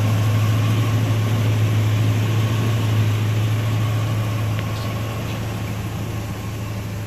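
The freshly rebuilt engine of a Toyota-based Sunrader camper idling with a strong, even hum that sounds like new. It gets a little quieter near the end.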